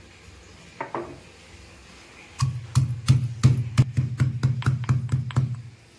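Stone pestle pounding garlic cloves, black pepper and cumin in a heavy stone mortar: after a couple of light knocks about a second in, a fast run of sharp thuds, about four to five a second, starts about two and a half seconds in and stops just before the end.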